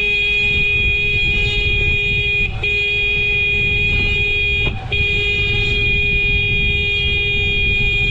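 A vehicle horn held in long steady blasts, broken briefly twice, about two and a half and four and a half seconds in. Under it is low wind rush from riding through traffic.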